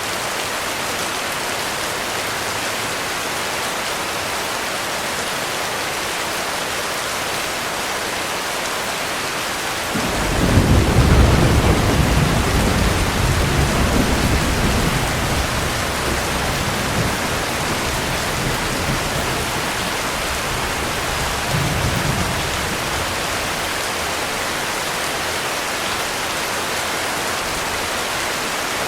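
Heavy rain falling steadily, with a clap of thunder breaking in about a third of the way through and rolling into a long, deep rumble that fades slowly, swelling once more near the end before dying away under the rain.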